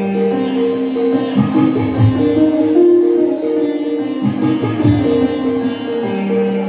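Live instrumental passage: an electronic keyboard holds long sustained melody notes over a steady tabla and rhythm-pad beat, with no singing.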